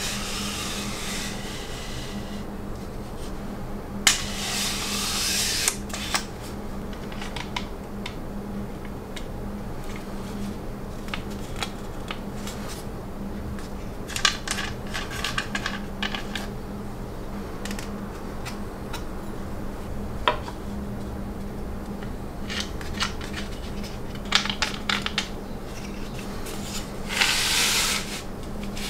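Plywood jig parts being handled: the wooden arm and fence slid and rubbed against each other in a few bursts of scraping, with scattered clicks and light knocks as parts are set down and knobs fitted. A low steady hum runs underneath.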